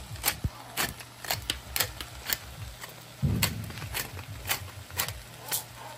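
Glass pepper shaker shaken over a pot of cabbage, giving a steady rhythm of sharp clicks about twice a second, with a low thump about three seconds in.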